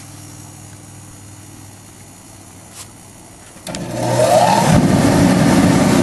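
Dayton 3VE50 forced-air kerosene heater firing back up as its thermostat is turned up: a click about three and a half seconds in, then the fan motor spins up with a short rising whine and the heater settles into running loudly and steadily.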